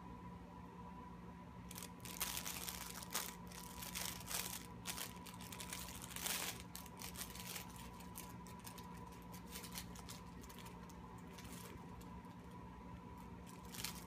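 A fabric cat play mat rustling in irregular bursts as a cat paws at it and burrows underneath. The rustling is busiest from about two to seven seconds in, then comes in scattered bursts, with one more burst near the end.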